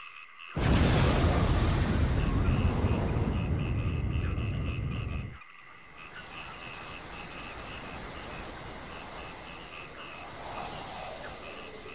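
A sudden, loud, rumbling blast sound effect starts about half a second in, holds for about five seconds and cuts off abruptly. After it comes a steady hiss, and a chorus of frogs croaking runs underneath throughout.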